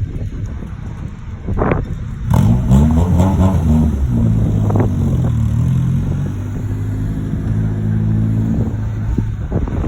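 Car engine revving hard: the pitch sweeps up and down for a moment, then holds steady at high revs for several seconds before dropping off near the end.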